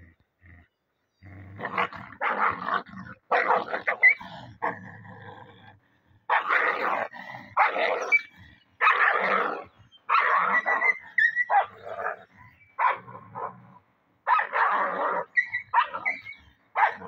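Several dogs play-fighting, growling and snarling in repeated bursts about a second long, with a few short high yelps among them.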